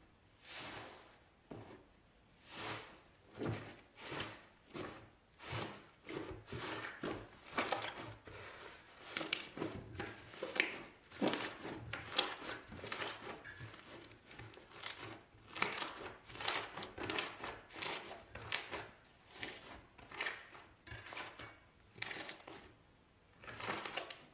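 Soft iceberg slime being pressed and kneaded by hand: a long run of short crunchy, squishy squeezes, a little faster than one a second.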